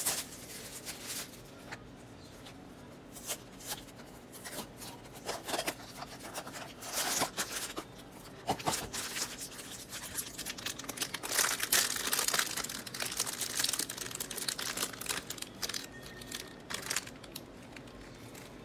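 Crinkly foil wrapping and a thin black plastic bag from a Funko mystery mini blind box being crumpled and torn open by hand: a long run of crackling crinkles and rips, thickest a little past halfway.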